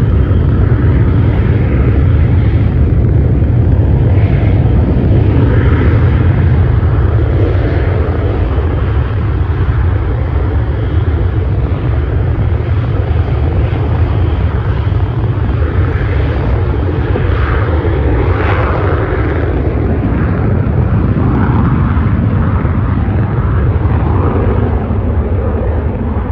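Fixed-wing aircraft engines running loud and steady, easing off slightly near the end.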